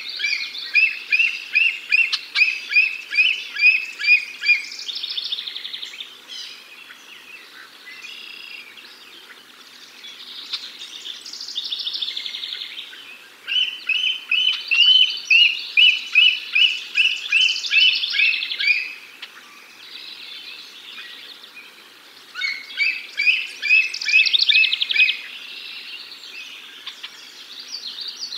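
Bald eagle chatter calls: three runs of rapid, high, repeated chirping notes, about two to three a second, the first at the start, one about halfway through and one shortly before the end. Quieter bird twittering fills the gaps between the runs.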